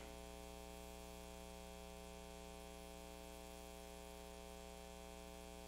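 Faint, steady electrical mains hum, a low buzz that does not change.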